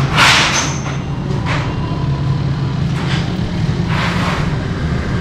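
Motor traffic: a steady low engine rumble with several brief rushes of noise as vehicles go by, the strongest right at the start.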